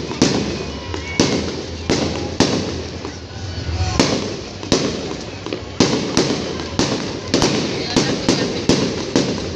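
Fireworks going off: a string of sharp bangs and crackles, a few a second, coming faster in the second half.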